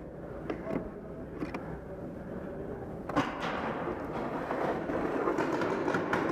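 Paintball game sounds: a few sharp pops and knocks of paintball fire, the loudest just after three seconds in, over a steady background noise that grows louder in the second half.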